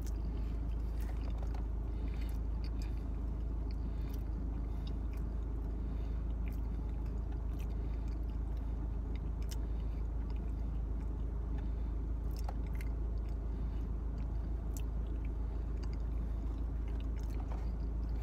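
Close-up chewing of pizza, with small mouth clicks and smacks scattered through, over a steady low hum.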